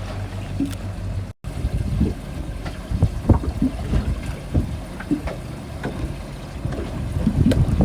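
Small fishing boat at sea: a steady low engine hum with irregular slaps and splashes of water against the hull, and wind on the microphone.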